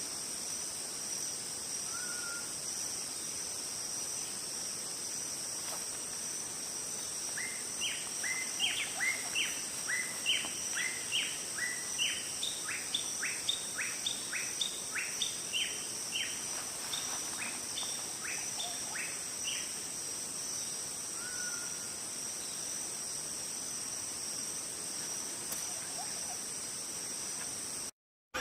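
Insects droning steadily at a high pitch, with a bird singing a long series of quick downslurred notes, about two a second, from about eight to twenty seconds in. The sound drops out briefly near the end.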